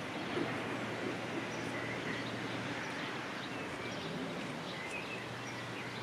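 Swift river current rushing steadily past the bank, with a few faint bird chirps.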